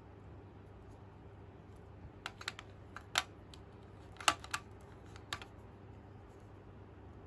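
Small plastic toy bread pieces clicking and tapping as they are handled and set down on a toy baking tray: a scattered run of light clicks over about three seconds, two of them sharper than the rest.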